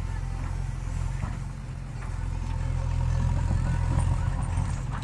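Diesel engine of a JCB 3DX backhoe loader running steadily, getting louder from about halfway through as it works harder.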